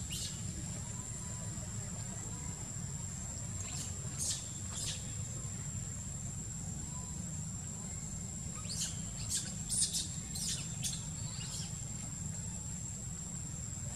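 Birds chirping in short clusters: once right at the start, once about four seconds in, and again from about nine to eleven seconds, over a steady high-pitched whine and a low, even rumble.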